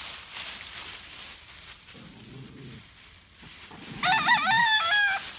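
Rooster crowing once, about four seconds in: a single cock-a-doodle-doo a little over a second long, stepping in pitch, after softer low sounds.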